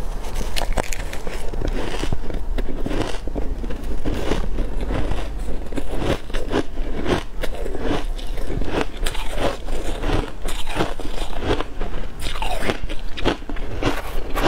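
Close-miked crunching and chewing of shaved ice dusted with matcha and milk powder: a rapid, continuous run of crackly bites as the ice is crushed between the teeth.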